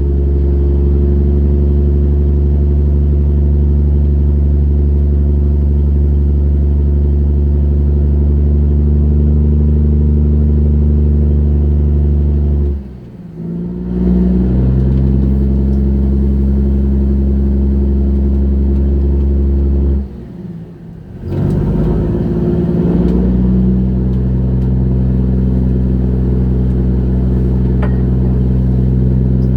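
A fishing trawler's engine running with a steady low drone. It falls away twice, briefly, and comes back each time at a slightly different pitch.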